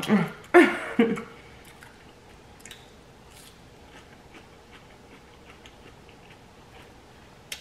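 A person chewing food close to the microphone: faint, scattered mouth clicks, with one sharper click near the end.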